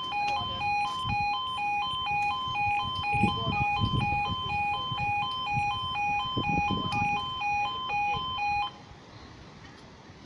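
Level crossing audible warning alarm sounding a quick, steady two-tone alternating signal while the barriers lower, cutting off suddenly near the end once they are down. Wind gusts rumble on the microphone underneath.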